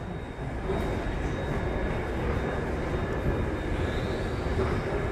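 Steady low rumble of a large airport terminal hall's background noise, with a faint steady high whine over it.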